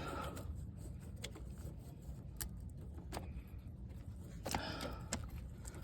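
Scattered small clicks and light taps of a plastic electrical connector and a screwdriver as the brake pad wear-sensor connector is worked free of its bracket, over a low steady hum.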